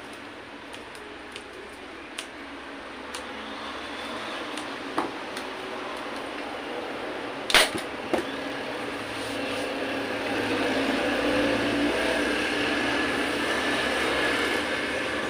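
Hand tools clicking and knocking on a wooden workbench while a motorcycle seat cover is trimmed and fitted, with one sharp knock about halfway through as the scissors are set down. A steady background rumble grows louder over the last few seconds.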